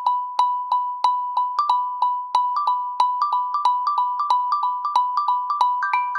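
A Nokia T26 tablet playing one of its built-in ringtone-style tones: a short electronic note repeated about three times a second on one pitch, with a slightly higher note joining after about a second and a half and higher notes coming in near the end as the pattern grows busier.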